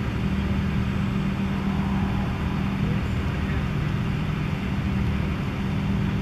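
A steady low motor hum, even throughout, with a constant hiss above it.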